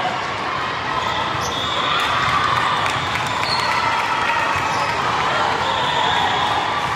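Steady din of a large hall full of volleyball play: balls being struck and bounced over a background of crowd chatter, with a few sharp ball hits standing out.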